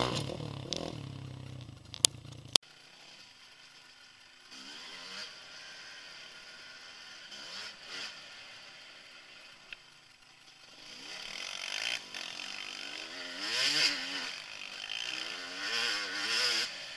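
Dirt bike engine revving up and down on a trail ride, its pitch rising and falling with throttle and gear changes. Fainter for the first half, then louder from about two-thirds in. Two sharp clicks about two seconds in.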